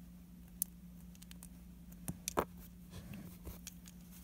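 Lego plastic pieces clicking and tapping as they are handled and pressed together: a few separate sharp clicks, the loudest about two and a half seconds in, over a faint steady low hum.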